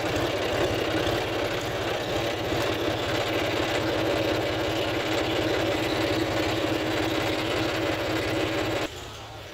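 John Deere 5050D tractor's three-cylinder diesel engine running at a steady speed, with no revving. The sound cuts off suddenly near the end.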